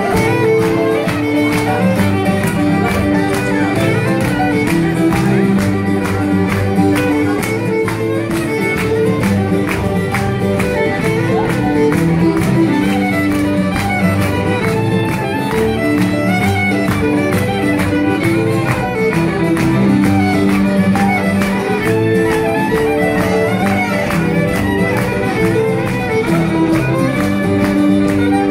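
Fiddle and acoustic guitar playing a traditional dance tune live, with a steady beat.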